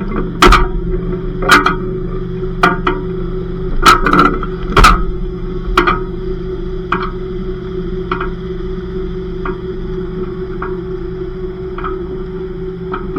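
A steady machine hum, with several loud sharp knocks in the first five seconds, then a light tick about once a second.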